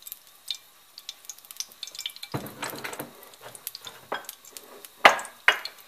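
Cooking oil heating in a pan, crackling with fine pops, while a metal spoon clinks and knocks against the pan and stove; the loudest knocks come about two and a half and five seconds in.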